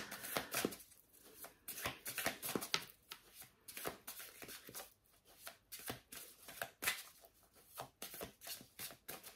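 A deck of oracle cards being shuffled and handled: a run of soft, irregular clicks and rustles of card against card.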